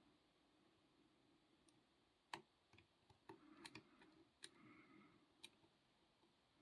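Faint, scattered metallic clicks of a short hook pick and tension wrench working the pin tumblers inside a Meister 45 mm padlock during single-pin picking, starting about two seconds in.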